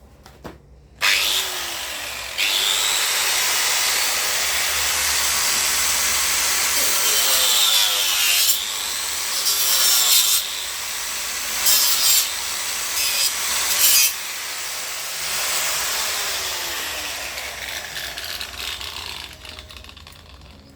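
Angle grinder spinning up about a second in and cutting through a PVC split tee, growing louder in several short bursts midway as the disc bites into the plastic. Near the end it is switched off and winds down with a falling whine.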